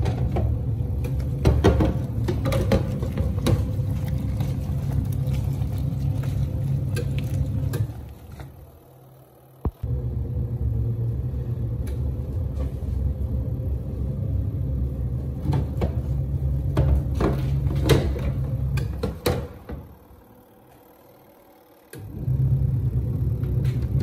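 Hisense 11 kg twin-tub washing machine's wash tub running with the lid closed: a steady low motor rumble with scattered knocks. It stops twice for about two seconds, the pauses between the pulsator's back-and-forth wash strokes, and there is a click just before it starts again the first time.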